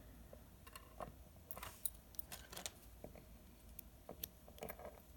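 Faint, scattered metallic clicks and light rattles from a Master Lock padlock and lock-picking tools being handled.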